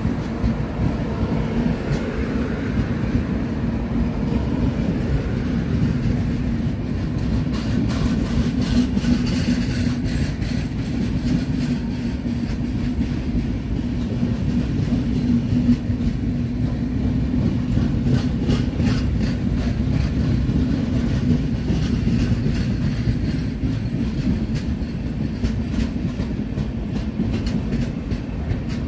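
Train running along the track at a station, a steady loud rumble with the wheels clicking repeatedly over rail joints from about seven seconds in.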